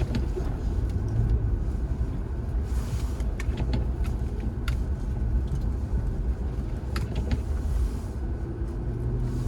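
Supercharged Jaguar X308 V8 sedan cruising on a salted, lightly snowy road, heard from inside the cabin: a steady low engine and road rumble, with a few faint clicks.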